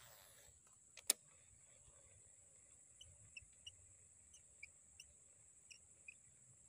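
Near silence in open swampland: a steady high insect drone, with faint short chirps every half second or so from about three seconds in, and a single sharp click about a second in.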